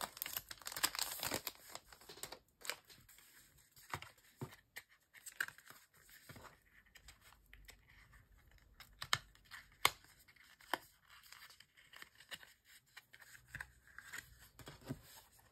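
Clear plastic photocard sleeves crinkling and rustling as photocards are slid into them, with scattered small clicks and taps of card on plastic. The rustle is densest in the first second or so, then thins to occasional crackles.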